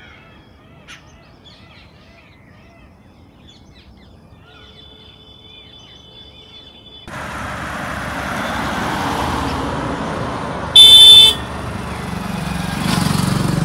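Faint bird chirps over quiet, then a steady rushing noise from about seven seconds in. About eleven seconds in, a vehicle horn gives one loud, short honk.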